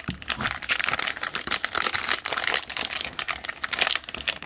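Plastic anti-static bag crinkling and rustling continuously as it is handled and lifted out of its box, with a quick run of small crackles.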